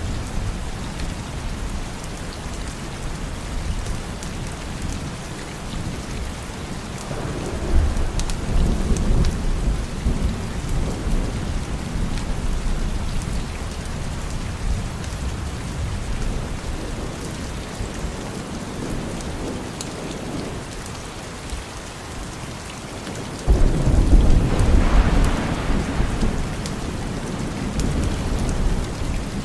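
Steady rain falling, with two rolls of thunder: a rumble about eight seconds in, and a louder one that breaks suddenly about three quarters of the way through and rumbles on for several seconds.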